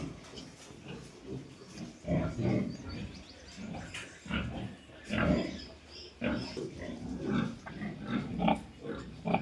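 Pigs grunting and squealing in short irregular bursts, several overlapping calls a second.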